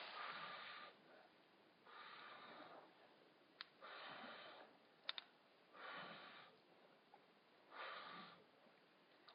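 Slow breathing close to the microphone, one soft breath about every two seconds, with a few sharp clicks in between.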